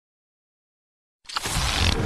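Channel intro sound effect: silence for just over a second, then a whooshing swell of noise with a deep rumble underneath, a short sharp tick just after it starts.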